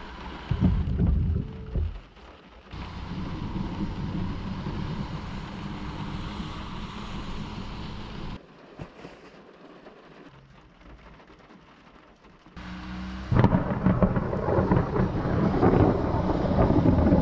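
Thunder rumbling over steady rain. The sound changes abruptly several times, going quiet for a few seconds past the middle, then a loud stretch of rumbling thunder with rain starts about three-quarters of the way through.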